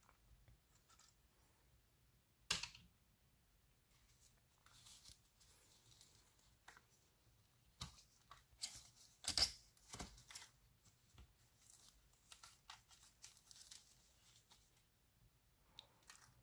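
Faint plastic packaging handling: clear plastic film crinkling and rustling against a foam tray insert as a small model train car is worked free, with scattered clicks and a few sharper snaps, the loudest about two and a half seconds and nine and a half seconds in.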